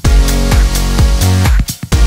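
Electronic dance music with a steady beat and heavy bass.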